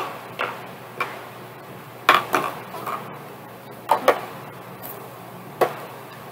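Light knocks and clicks of small plastic bottles being picked up, shaken and set down on a tabletop, scattered through, with a small cluster about two seconds in.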